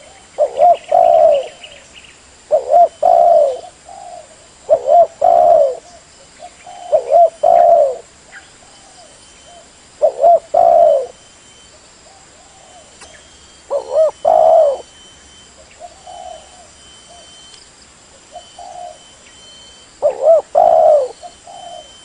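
Caged spotted doves (derkuku) cooing in a singing contest: loud, low coo phrases of about a second each, repeated every two to four seconds with a few longer gaps.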